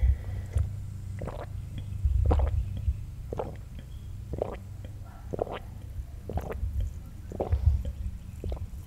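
A person gulping a drink from a glass, swallowing at a steady pace of about once a second.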